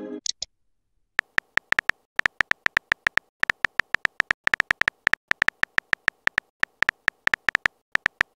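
Simulated phone-keyboard typing sound: short, sharp clicky beeps in quick uneven bursts, one per keypress, starting about a second in.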